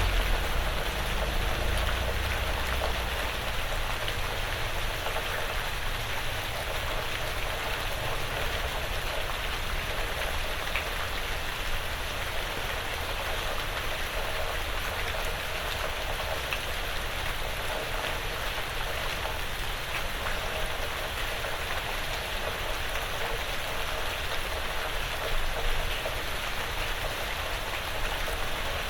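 Steady light rain falling on a porch roof and the surrounding woods, a continuous patter of drops with a few single drops ticking out. A low rumble fades away over the first few seconds.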